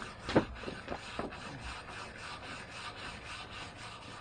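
Hand wire brush scrubbing the charred surface of an oak board with quick back-and-forth strokes, scraping off the loose char after shou sugi ban burning. A few sharper, louder scrapes come in the first second or so.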